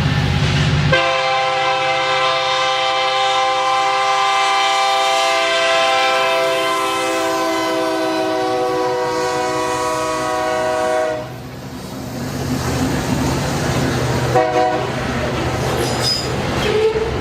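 Train horn sounding one long blast of about ten seconds, its pitch sagging slightly, then cutting off suddenly. It leaves the low rumble of the train running on the rails, with a brief horn note near the end.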